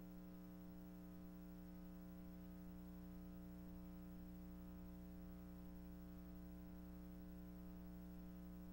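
Near silence: a faint, steady hum.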